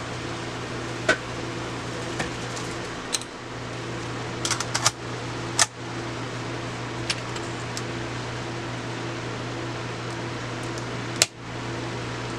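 Scattered sharp clicks and clunks from a Sony camcorder's cassette and tape-loading mechanism as it is tried out after its tracks were greased, with a cluster of clicks about four to five seconds in and a loud click near the end. A steady hum runs underneath.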